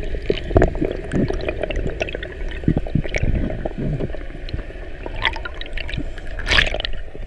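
Water gurgling and sloshing heard underwater, with a low rumble and many scattered clicks and crackles; a louder crackle comes near the end.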